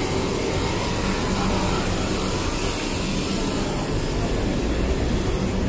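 Steady city street background noise: a constant low hum and rumble with no distinct events.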